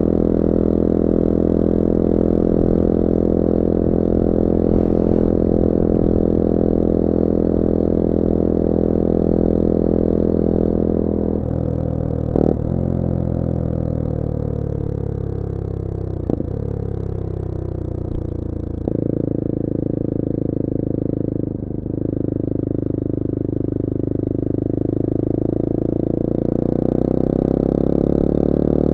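Bullit Hero 250's CF Moto 250cc four-stroke engine under way, holding a steady note, then easing off with the pitch falling for several seconds, broken by two brief clicks. It then picks up again and its note climbs gradually near the end.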